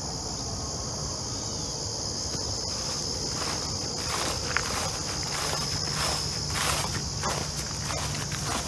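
Steady high-pitched chorus of crickets, with footsteps crunching on loose dirt and gravel starting about three seconds in.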